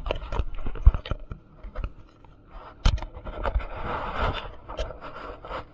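Jet ski running over choppy water, heard through the handlebar-mounted action camera: irregular knocks and deep thumps as the hull and water strike, with a rushing hiss of spray swelling about halfway through.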